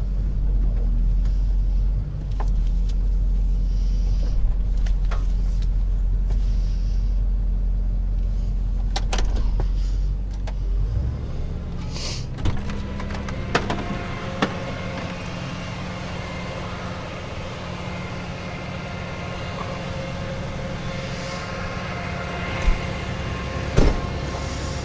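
Rollback tow truck's engine running, with a deep rumble for about the first eleven seconds. The rumble then drops away to a steadier hum, with a few sharp clicks and knocks.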